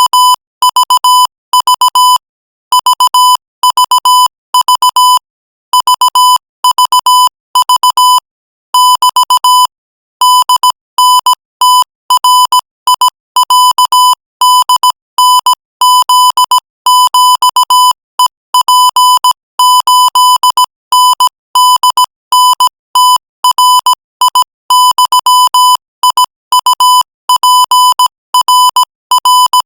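Morse code sent at 20 words per minute: a steady tone of about 1 kHz keyed on and off in short dots and longer dashes, with short gaps between letters and longer gaps between words.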